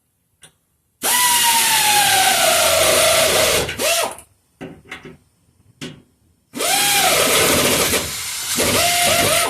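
Pneumatic air ratchet run in two long bursts while tightening exhaust clamp nuts, its motor pitch falling as the nut takes up load. A few short clicks of the tool and clamp come between the bursts.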